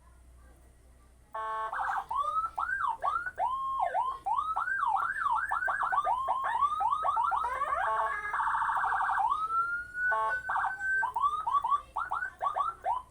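A 24-tone Whelen-style electronic siren kit being test-run through a speaker, starting about a second in. It cycles through its tones: fast up-and-down wail and yelp sweeps, short buzzy steady blasts, and a slow rising tone, with a brief break near the end.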